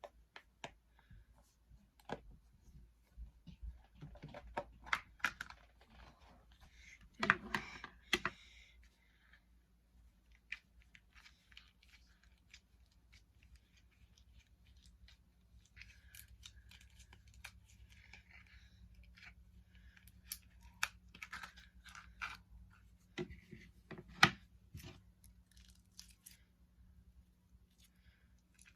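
Faint scattered clicks, taps and rustles from small objects being handled, with louder clusters about seven seconds in and again near twenty-four seconds. A faint steady low hum comes in about eight seconds in.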